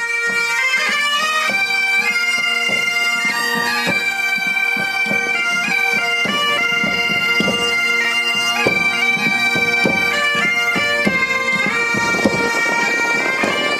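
Pipe band of Great Highland bagpipes playing a march: a steady drone under a melody that moves note by note.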